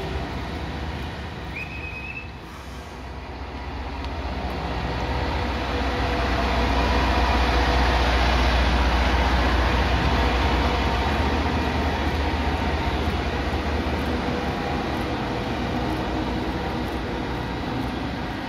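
Diesel engine of an INKA CC 300 locomotive running with a deep, steady rumble, growing louder from about three seconds in to a peak around eight seconds, then easing off a little.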